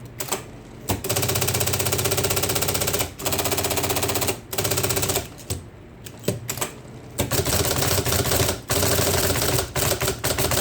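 IBM Selectric I electric typewriter typing in fast runs of typeball strikes, each run one to two seconds long and broken by short pauses, over a steady motor hum.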